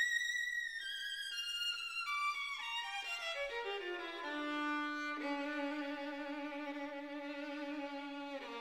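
Background music: a melody that steps down in pitch over the first four seconds, then settles into long held notes.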